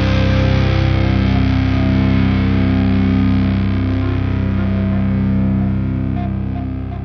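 Background music: distorted electric guitar rock with sustained held chords, slowly fading out near the end.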